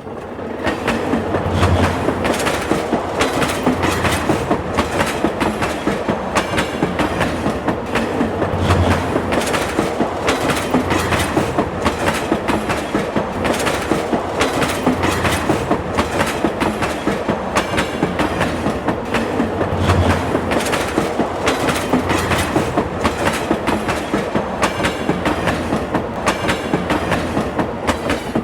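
Subway train running along the track, a steady rumble and rush broken by rapid, regular clacks of the wheels over rail joints, about two to three a second.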